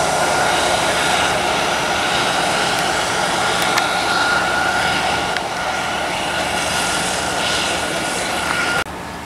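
Airbus A320's jet engines running at taxi power as the airliner moves past: a steady rush with a high, steady whine. The sound cuts off suddenly near the end.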